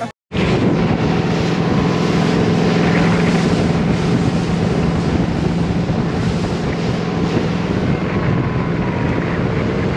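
Motorboat engine running steadily at speed, a constant low drone, with wind buffeting the microphone and water rushing past the hull.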